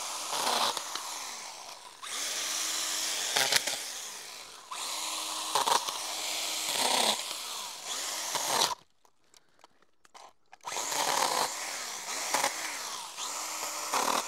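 STIHL GTA 26 battery-powered mini chainsaw cutting thin branches in repeated short bursts, its electric motor and chain spinning up at the start of each cut and winding down at the end. It stops for about two seconds a little past halfway, then starts cutting again.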